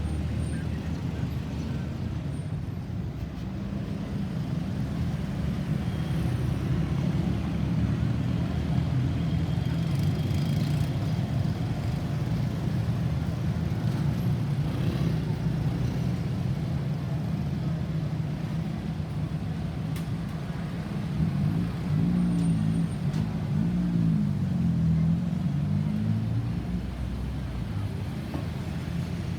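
Road traffic: motor vehicle engines running with a steady low rumble, and a few faint wavering sounds near the end.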